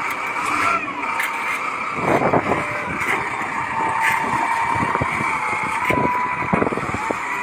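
XCMG wheel loader's diesel engine running under load, with a thin whine about four seconds in as the bucket is raised. Crushed rock clatters into a steel dump-truck bed in bursts.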